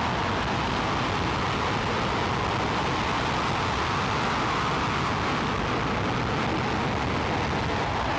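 Space Shuttle Main Engine firing on a test stand: the liquid-hydrogen/liquid-oxygen rocket exhaust makes a steady, even rushing noise that holds level without a break.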